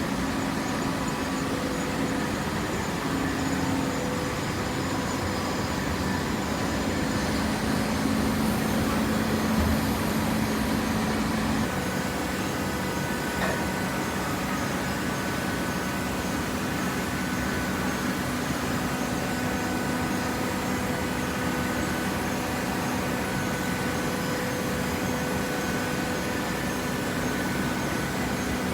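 Baling press machinery running with a steady mechanical hum; the pitch of its main tone shifts about twelve seconds in.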